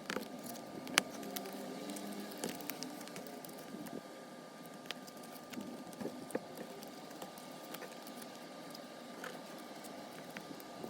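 Scattered light clicks and soft rustling of items being handled, the sharpest click about a second in, over a faint steady high-pitched hum.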